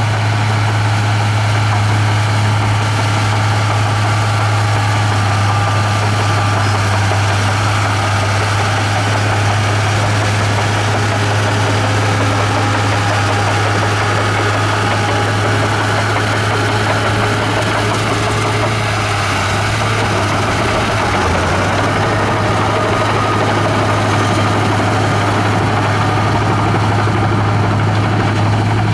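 Komatsu bulldozer's diesel engine running steadily with a deep, even drone, dipping slightly about twenty seconds in.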